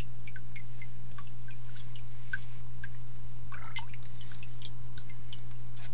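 Water dripping and trickling in an aquarium: many small, irregular drips over a steady low hum.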